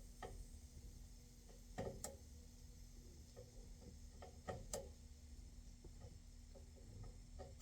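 Faint scattered clicks of a screwdriver working the thermostat wire terminal screws on an HVAC unit's control board, over a low steady hum; the clicks are sharper about two seconds in and again twice around four and a half seconds in. The terminals being worked are loose.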